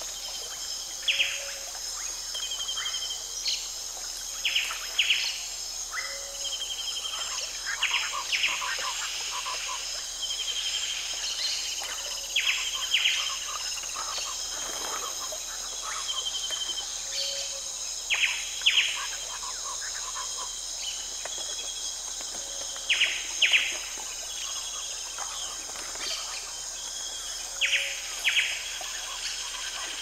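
Tropical rainforest ambience: a steady high insect drone with bird calls in short bursts every few seconds, and a short lower call that comes back every four to five seconds.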